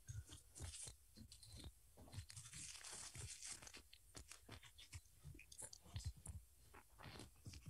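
Clip-on lavalier microphone being fastened to clothing: faint handling noise of small clicks, scrapes and fabric rustle, with a longer stretch of rustling about two and a half seconds in.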